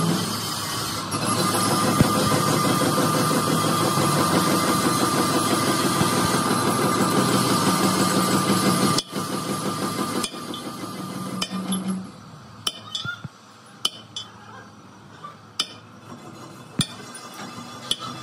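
Workshop machinery running steadily with a high whine, which drops away about halfway through; after it, a handful of sharp metal clinks and knocks.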